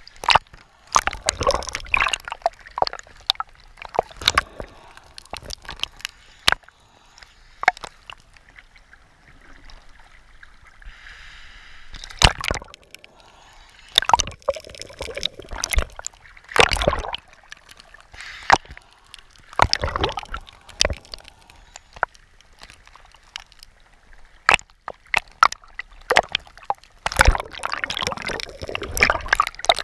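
Water sloshing and gurgling in irregular bursts, broken by many sharp clicks and knocks, as picked up by action cameras in and under the water.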